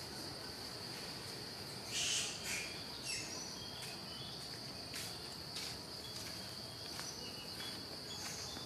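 Insects droning steadily at one high pitch in the forest, with a few brief, louder sharp sounds about two seconds in and again around five seconds.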